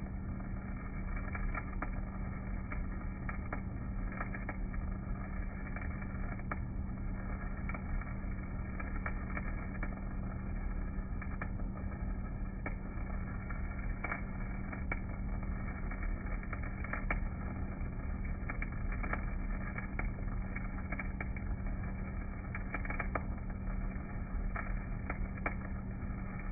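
Stick-welding arc with a basic EZ50 electrode, crackling with irregular sharp pops over a steady low hum. The sound is slowed down with the slow-motion picture, so it comes out low and muffled, with no high hiss.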